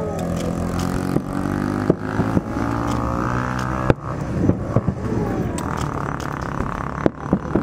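An engine running steadily, with a few sharp cracks or pops, about two, four and seven seconds in.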